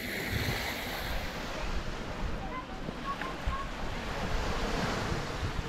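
Small waves washing on a sandy beach, with wind gusting on the microphone as a low rumble. The sound stays steady throughout.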